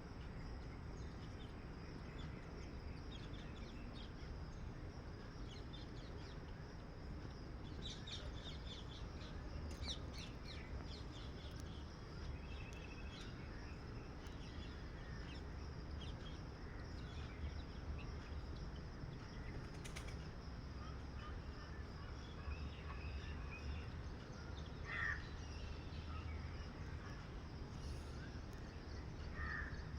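Outdoor ambience of a steady low rumble with scattered short, high bird chirps, then a crow cawing about 25 seconds in and again near the end.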